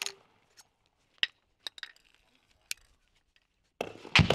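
Gunfire on a machine-gun range: scattered sharp cracks and light metallic clinks, then a loud double report about four seconds in that trails off in a low rumble.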